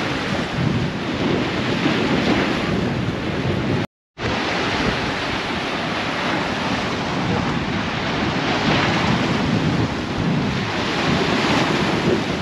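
Rough, choppy river water washing against a grassy, rocky bank, with wind buffeting the microphone as a steady rumbling noise. The sound cuts out completely for a moment about four seconds in.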